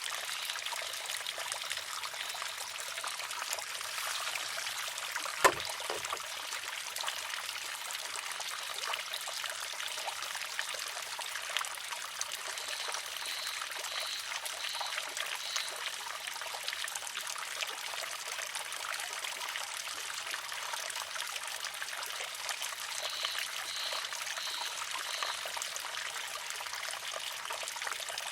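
Water trickling and pouring steadily through a wooden shishi-odoshi, with one sharp clack about five and a half seconds in as the water-filled wooden arm tips and strikes its rock. Faint high notes come in two short runs of four.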